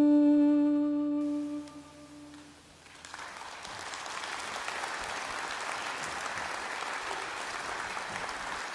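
The last held chord of the song from acoustic guitars and violin rings out and fades over about two and a half seconds. Audience applause then starts about three seconds in and carries on steadily.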